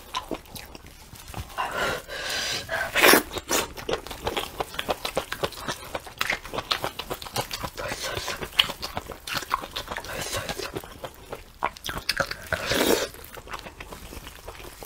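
Close-miked chewing of braised lamb head meat, with many short wet mouth clicks and the tearing of sauce-soaked meat pulled apart by gloved hands. A couple of louder wet noises come about three seconds in and again near the end.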